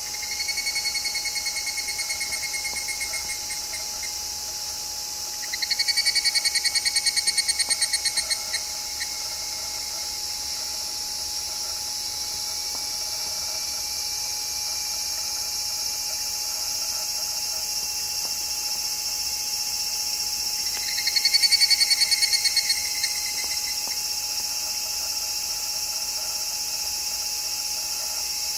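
Higurashi (evening cicada) calling in rapid pulsing trills of about three seconds each, three times: right at the start, about six seconds in, and about 21 seconds in. Beneath the calls runs a steady high-pitched chorus hiss.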